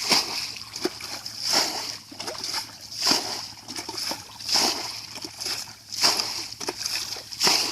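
Water splashing in a steady rhythm, one splash about every second and a half.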